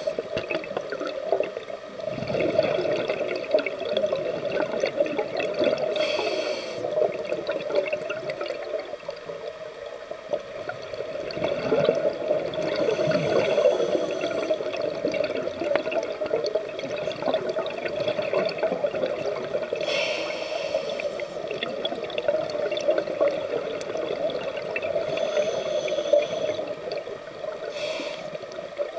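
Scuba diver breathing through a regulator underwater: a short hiss of inhalation every several seconds, with long stretches of exhaled bubbles rushing in between.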